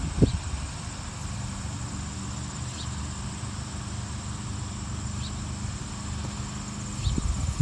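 Insects trilling steadily in the background, with a steady low rumble underneath and a brief bump just after the start.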